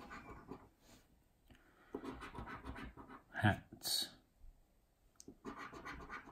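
A coin scraping the coating off a paper scratchcard, in several short spells of rubbing.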